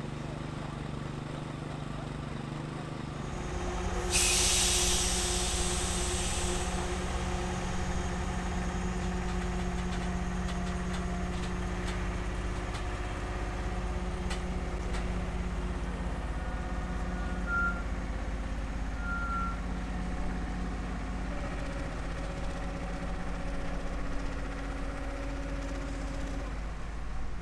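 Heavy-haulage truck's diesel engine running steadily under a multi-axle load, with a loud hiss of released air about four seconds in that lasts a couple of seconds.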